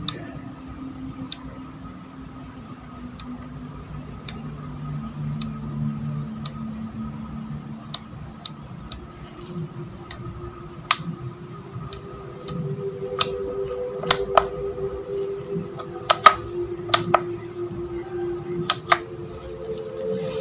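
A machine's electric motor running with a whine that slowly shifts in pitch, over a steady high tone, with scattered sharp metallic clicks that come more often in the second half.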